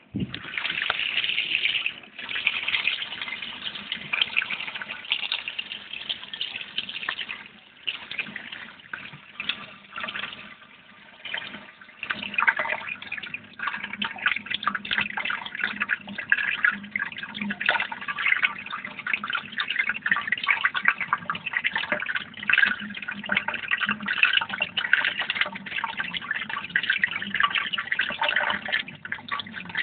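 Running water splashing and trickling, with a steady low hum underneath; it starts abruptly.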